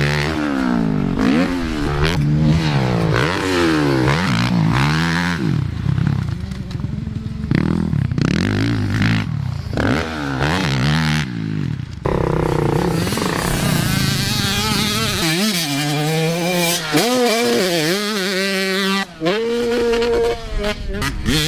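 Motocross bike engines revving hard and chopping off, the pitch rising and falling again and again as the bikes accelerate and back off over jumps. About twelve seconds in, the sound changes to a higher, wavering engine note held steady between brief dips.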